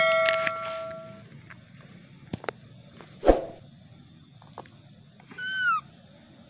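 A bell-like chime, the sound effect of a subscribe-button animation, rings and fades away over the first second. A single thump comes about three seconds in. Near the end a baby monkey gives a short high squeak that bends down in pitch.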